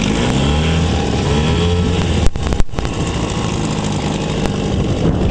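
1974 Johnson 6 hp two-cylinder two-stroke outboard running in gear, its note rising over the first second and then holding steady. It runs on oversized spark plugs screwed straight into stripped plug holes in its aluminium head, and it doesn't pre-ignite. Two sharp knocks come a little over two seconds in.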